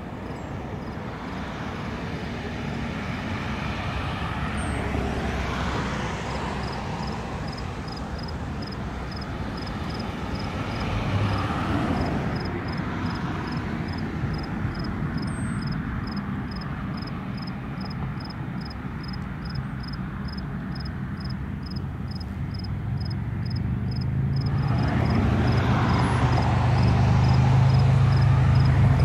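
Jet aircraft engines near the end of a runway: a broad noise that swells and ebbs, then a deep steady hum that comes in and grows louder over the last few seconds.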